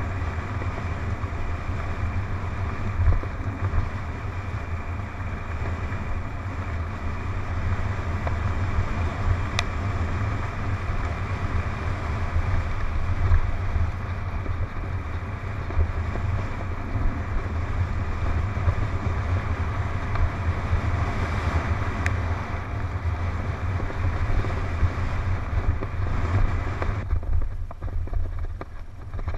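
Wind rushing over a helmet camera's microphone with the rumble of a mountain bike's tyres running fast down a dirt forest trail. The higher hiss drops away about two seconds before the end.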